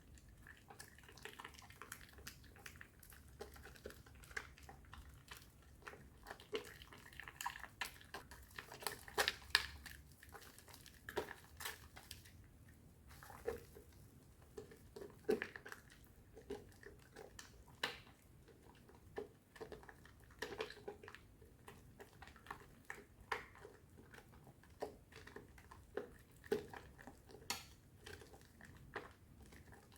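Hands lathering a wet bar of Aist strawberry soap mixed with powder into thick foam, making a run of short, irregular clicks and crackles, some louder than others.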